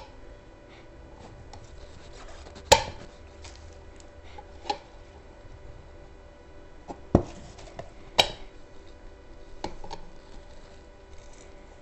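Scattered sharp knocks and clacks of tools and parts being handled during an electric unicycle tire change, the loudest about three seconds in and two more near seven and eight seconds, over a faint steady hum.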